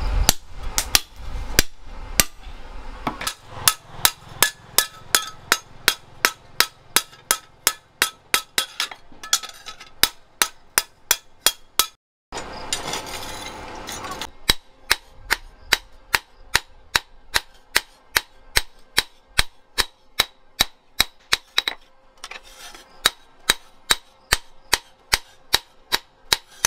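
Hand hammer striking a steel blade cut from a circular saw on an anvil, a steady run of sharp metal-on-metal blows about three a second. The blows break off about twelve seconds in for a short rush of noise, then resume at the same pace.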